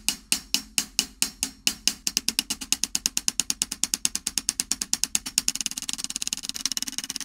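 Hi-hat played with one stick in even 16th notes using a push-pull wrist and arm motion, about four to five strokes a second. The strokes get faster about two seconds in and faster again near the end as the footage is sped up.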